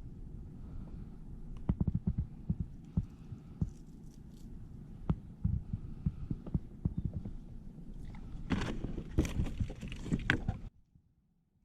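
Muffled low thumps and sharp knocks of handling on a kayak, with a louder noisy stretch near the end that cuts off abruptly.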